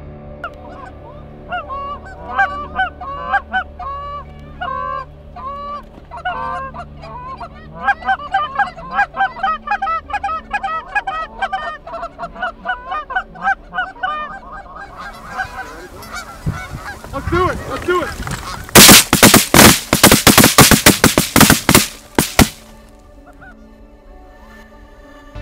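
Canada geese honking and clucking, many overlapping calls. Near the end comes a rapid volley of many loud, sharp shotgun blasts lasting about three and a half seconds.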